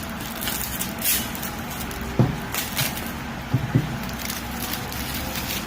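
A smartphone's cardboard retail box being handled and opened: rustling and scraping with a few sharp knocks, one about two seconds in and two close together a little later, over a steady background hum.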